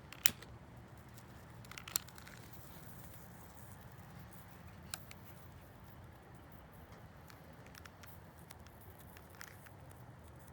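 Fire crackling: a steady low rumble of burning with sharp pops, the loudest just after the start and at about two seconds, and fainter ones near the middle and near the end.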